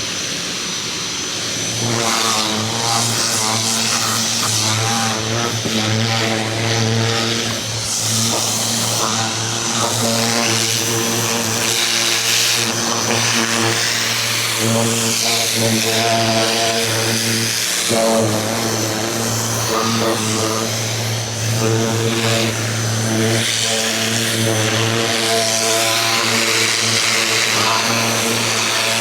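Ryobi 2000 PSI electric pressure washer running, its motor and pump humming steadily under the hiss of the water spray. The hum grows louder about two seconds in.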